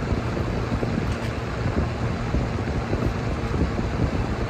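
A steady low rumble of background noise.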